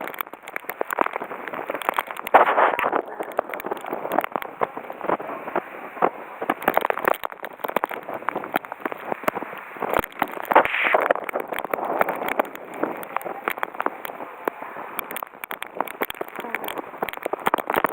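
Typhoon wind and rain lashing the microphone: a gusting rush with a dense crackle of raindrops. It surges loudest about two and a half seconds in and again about eleven seconds in.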